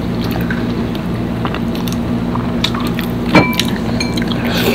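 A steady low hum runs under small clicks and smacks of eating by hand from the dishes. About three and a half seconds in, a dish clinks sharply and rings briefly.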